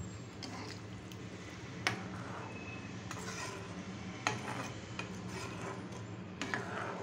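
A metal ladle stirring chickpea curry in a nonstick pan, scraping through it, with sharp clicks of the ladle against the pan about two seconds in, again past four seconds and near the end, over a steady low hum.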